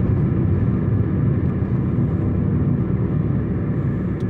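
Steady low rumble of road and engine noise from a car driving, heard from inside the cabin.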